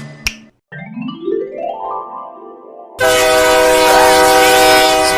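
A short click, then a tone that rises in pitch for about two seconds. About three seconds in, a loud, steady multi-note train horn starts.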